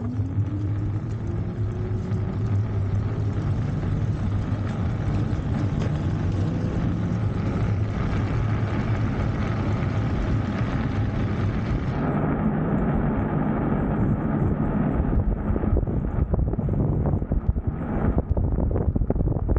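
E-bike riding along a road while towing a dog trailer: an electric motor whine rising in pitch over the first few seconds as it speeds up, over steady wind and tyre noise. From about twelve seconds in the sound turns rougher, with many short knocks and rattles.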